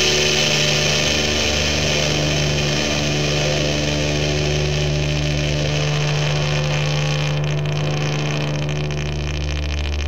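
Lo-fi rock track's instrumental passage: a dense, steady wall of distorted noise over a held low drone, the hiss thinning a little near the end.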